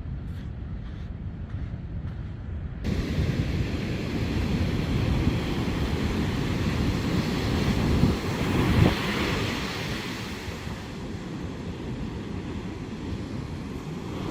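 Ocean surf and wind buffeting the microphone, starting abruptly about three seconds in after a muffled low rumble. A wave surges loudest around eight to nine seconds in.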